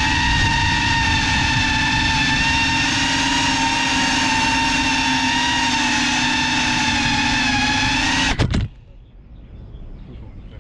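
FPV racing quadcopter's motors and propellers whining steadily at several even pitches. About eight seconds in, a short clatter as the drone crashes, and the motor whine cuts off abruptly.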